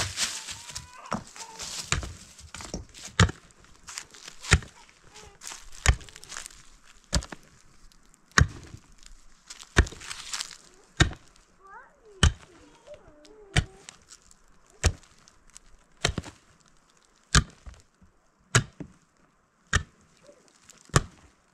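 Hand mattock striking into packed, stony earth while digging out a bank: steady blows a little over a second apart, each a dull chop with a short crunch of soil and stones.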